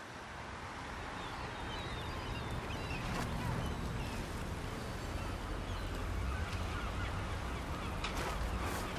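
Harbour ambience: a steady low wash of background noise with scattered bird calls.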